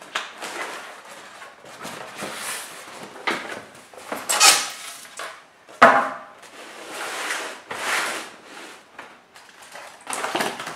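A cardboard box being opened by hand: flaps scraping and sliding, with white foam packing inserts rubbing and being lifted out. A sharp knock about six seconds in.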